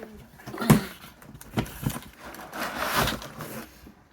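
A few sharp knocks and clunks as pieces of a two-piece oven-to-table dish set are handled and set down, with a stretch of packaging rustling near the middle.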